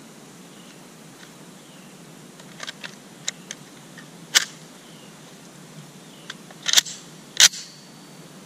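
Metallic clicks and clacks of an M14 rifle being loaded by hand: a magazine rocked into the magazine well and the action worked to chamber a round. A few light clicks come first, then sharper clacks about four and a half and seven and a half seconds in.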